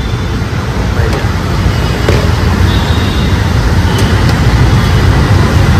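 Steady low rumble of road traffic, with a few light clicks over it.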